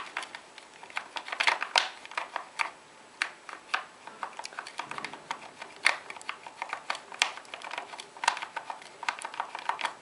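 Irregular light clicking and crackling of wires and plastic connectors being handled and pulled inside a motorcycle headlight shell.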